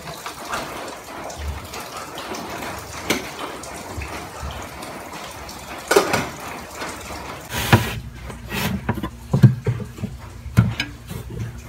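Water and clinks at a kitchen sink as a rice cooker's pot is handled. About eight seconds in, this cuts to a low steady hum with knocks and rustles as vegetables are rummaged in a drawer.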